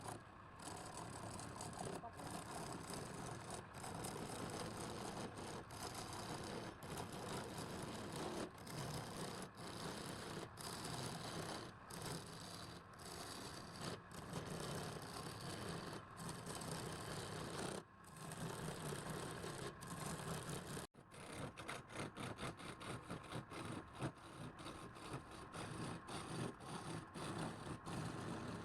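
A motor-driven machine running with a steady rushing noise, broken by short abrupt cuts.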